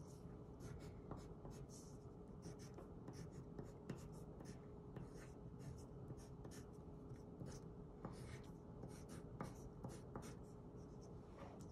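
A black pencil writing block letters on paper: quick, faint scratching strokes, several a second, with small pauses between letters.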